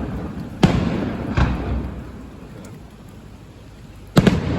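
Aerial firework shells bursting: three loud bangs, about half a second in, a second and a half in and near the end, each followed by a long rolling rumble of echo.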